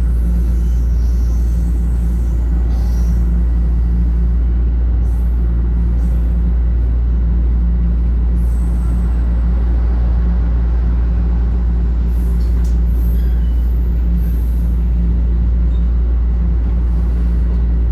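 Steady, loud low rumble of a Toronto Rocket subway train running at speed, heard from inside the car, with a faint steady high whine over it.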